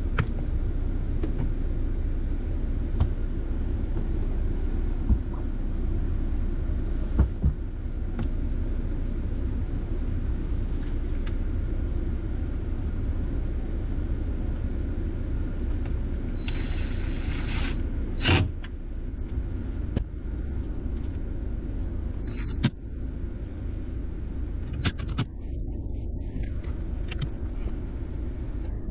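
A steady low rumble throughout. About two-thirds of the way in, a cordless drill-driver runs briefly for just over a second, driving a screw into the sunroof shade assembly. A sharp knock follows, then a few light clicks of parts being handled.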